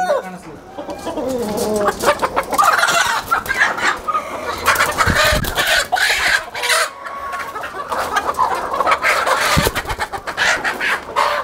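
Country (nati) chickens squawking and clucking loudly while being grabbed and pulled out of wire cages, with their wings flapping hard against the hands and cage.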